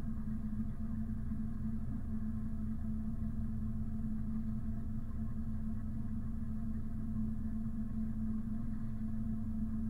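Sailing yacht's inboard engine running steadily at slow speed: an even, low drone with a steady hum.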